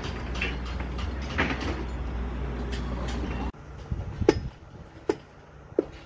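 Construction-site machinery running with a steady low rumble and scattered metallic clinks. The rumble cuts off abruptly partway through, and three sharp metal knocks follow, about a second apart.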